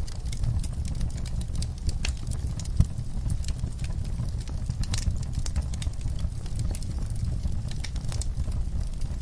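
Logs burning in a fireplace: a steady low rumble of flame with irregular sharp crackles and pops, and one louder snap about three seconds in.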